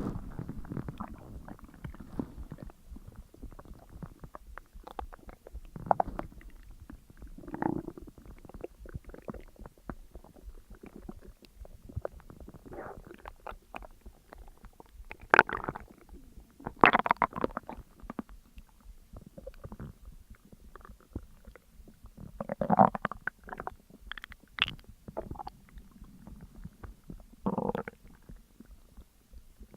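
A person's stomach and intestines gurgling and rumbling while digesting a large meal: an irregular string of squelches and gurgles of varying length, with louder ones every few seconds.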